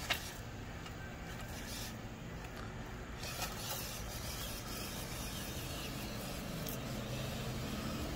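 Small 1/18-scale RC crawler's electric motor and gearbox whirring as it drives over loose gravel, with a sharp knock at the start and a few lighter clicks of stones.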